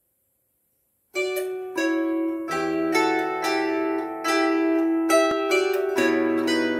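Bandura played solo, its strings plucked: after about a second of silence, ringing treble notes start, and deeper bass strings join in about a second later.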